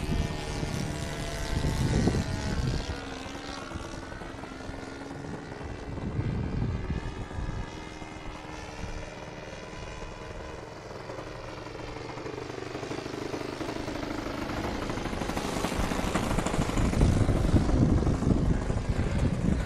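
Radio-controlled model airplane in flight, its engine and propeller drone sliding up and down in pitch as it passes back and forth, growing louder near the end.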